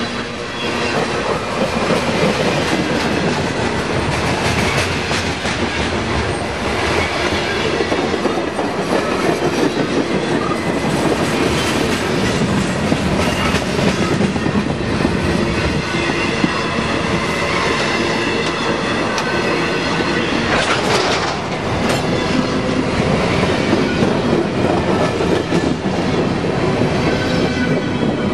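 Freight train cars rolling past at close range, steel wheels clattering and rumbling over the rail joints, with a steady loud noise and some squealing from the wheels and brakes as the train slows on the downgrade. A brief sharp noise stands out about three quarters of the way through.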